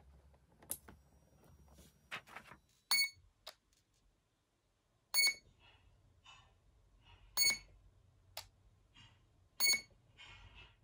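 A ZOHD MK2 30A ESC, just connected to its battery with the throttle at full, beeping through the brushless motor: a click as the battery plugs in, then four short single beeps about two seconds apart while the ESC waits in throttle calibration mode.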